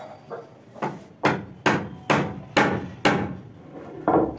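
Hammer blows on wood: about eight sharp strikes at roughly two a second, the middle ones loudest, then a short pause before a last strike near the end.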